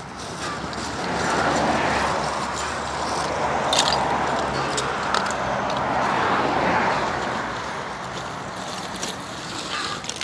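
A motor vehicle passing, its engine and tyre noise swelling over a couple of seconds, holding, and fading away near the end. A few light clinks of lumps of charcoal being handled in a metal stove.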